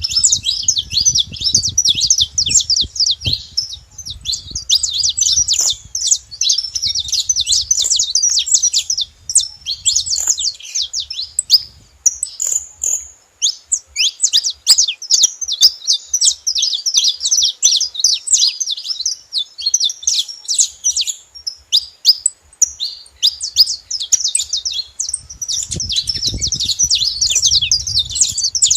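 A group of saffron finches chirping and singing together in a dense, fast stream of short high notes, with a couple of brief lulls.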